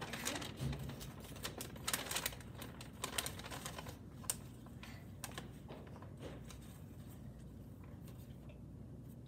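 Faint crackling and rustling of paper and a bag being handled as a raffle name is drawn, a quick run of small crinkles and clicks that thins out after about five seconds.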